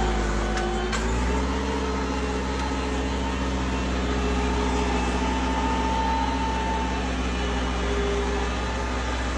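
Tractor diesel engine running steadily under load while pulling a plough, its note dipping briefly at the start and picking back up about a second in.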